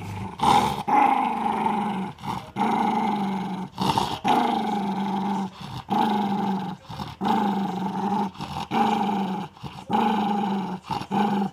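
Small terrier-type dog growling over a chew, a long run of low rumbling growls each lasting about a second with brief breaks between them.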